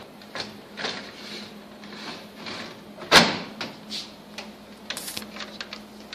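Plastic clicks and knocks from handling the parts of a Canon imageRUNNER copier: the drum cartridge and the latch at the toner compartment. One sharp, loud knock comes about three seconds in.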